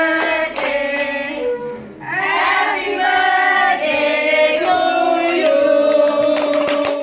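A small group of people singing a birthday song together in long held notes while clapping, with a short break about two seconds in before the singing picks up again.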